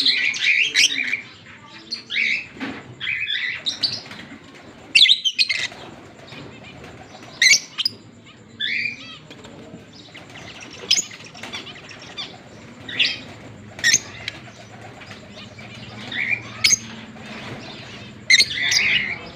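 A pair of Fischer's lovebirds chirping: short, sharp calls at irregular intervals, bunched into clusters near the start and near the end.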